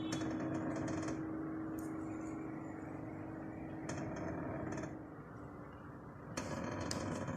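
Kia Sportage giving off a steady whining hum by itself, with no one touching it, that stops about five seconds in. A brief rattling, scraping burst follows near the end.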